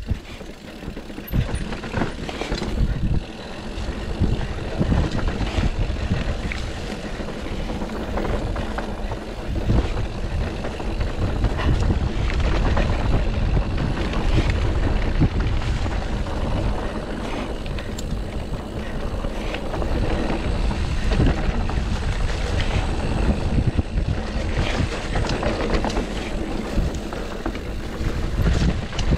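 GT Sanction enduro mountain bike descending a rough, rocky trail: wind rushing over the chest-mounted microphone, tyres rolling over rock and dirt, and frequent knocks and rattles from the bike over bumps.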